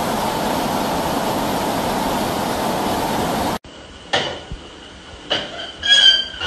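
Floodwater rushing through a street in a steady, loud, even rush that cuts off suddenly about three and a half seconds in. After that it is quieter, with a few sharp knocks and a brief, loud, high-pitched sound near the end.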